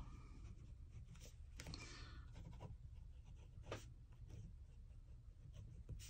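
Faint scratching of a Tombow Airpress pressurised ballpoint pen writing on notebook paper, in short strokes with a few small ticks.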